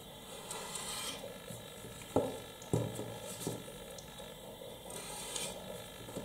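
A pointed pottery tool scraping and cutting through a soft clay slab on a cloth-covered board, with faint rubbing and handling noise. Two soft knocks come a little over two and nearly three seconds in.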